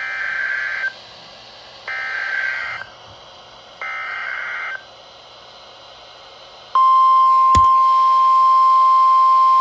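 Emergency Alert System alert starting on a NOAA weather radio: three short, harsh data bursts (the SAME header) about two seconds apart, then the steady high single-pitch warning alarm tone. A sharp click comes about a second into the tone. The header marks the start of a new weather warning.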